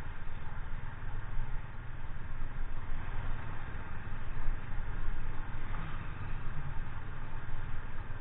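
Motorcycle running, a steady low engine hum under an even hiss.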